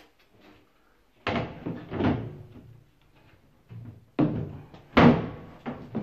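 Indesit washing machine's top lid being set down on the cabinet and knocked into place: a clattering thud about a second in, more knocks, and the loudest sharp bang about five seconds in as it is pushed home into its catch.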